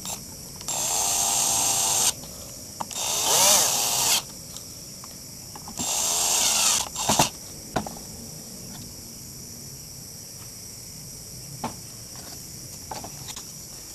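Cordless drill running in three short bursts of about a second each as it works a screw into a small wooden battery housing, followed by a few light clicks. Crickets chirp steadily in the background.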